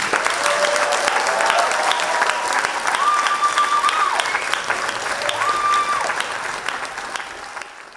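Theatre audience applauding, with a few long cheers rising above the clapping; the applause fades near the end.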